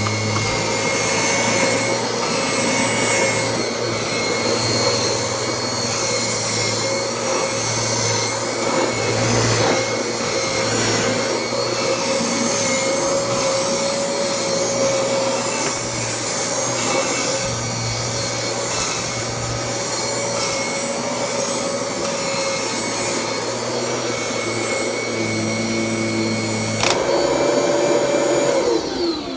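Kirby Generation 3 upright vacuum cleaner running steadily, its motor giving a constant whine over a rushing air noise. There is a sharp click near the end, and then the motor winds down with falling pitch.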